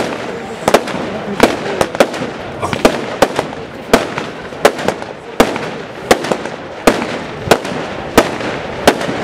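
Aerial fireworks display: shells bursting in quick succession, sharp bangs at irregular intervals about twice a second, over a steady hiss and crackle between them.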